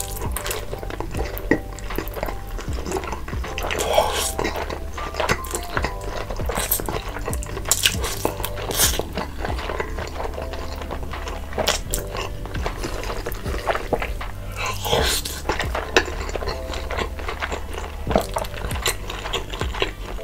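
Close-miked eating sounds: wet slurping and chewing of spaghetti, with clicks of a wooden fork against the bowl, over quiet background music.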